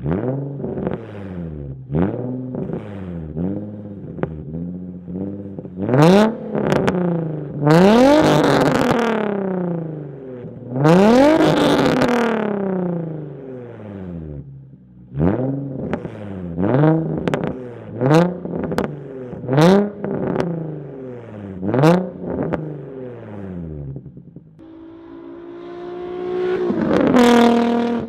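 Nissan Z's VQ V6 through a Tomei Extreme Titanium exhaust, revved again and again with quick throttle blips. Each rev rises sharply and falls back toward idle, and some blips bring a few sharp cracks. Near the end comes a slower, longer climb to a higher rev before it drops.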